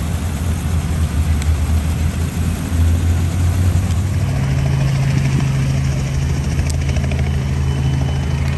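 Light helicopter running on the ground, a steady low drone of engine and rotor; about four seconds in the drone shifts to a slightly higher steady hum.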